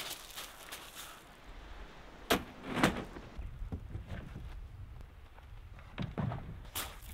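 Hard plastic hatch cover of a yellow Triumph 13 sit-on-top kayak being handled, giving a few sharp clunks and knocks: two about two and a half seconds in and two more near the end.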